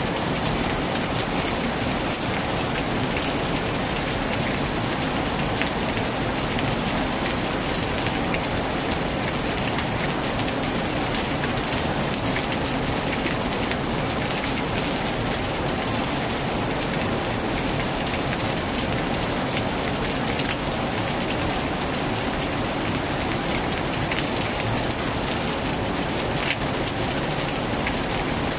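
Heavy rain pouring down steadily, a dense even hiss with scattered sharper drop impacts.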